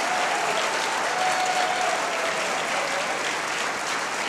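Audience applauding steadily after an a cappella chorus performance, with a long shouted cheer over it in the first couple of seconds.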